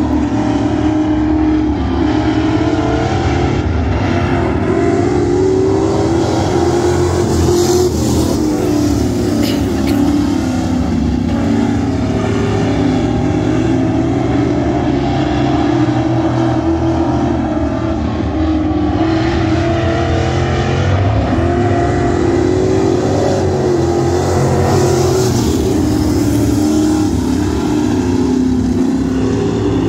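Several dirt-track race cars' engines running hard as they lap a dirt oval, the engine pitch rising and falling over and over as drivers get on and off the throttle.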